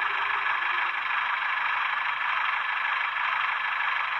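Recorded Class 142 Pacer diesel engine sound played from an N gauge model's DCC sound decoder through a tiny sugar-cube speaker: a steady, thin engine sound, with a faint low note fading out about a second in.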